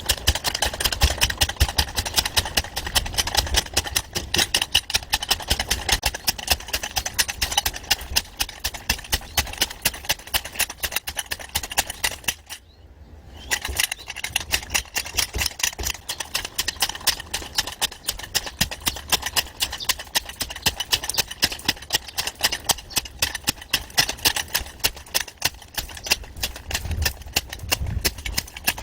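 Rapid, steady knocking of a homemade concrete compacting tool working, with one short stop about halfway through.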